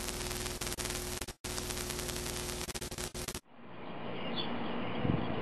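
Hissing static with a steady underlying hum, dropping out briefly once and cutting off suddenly about three and a half seconds in. Quiet outdoor background sound then fades in, with a couple of faint chirps.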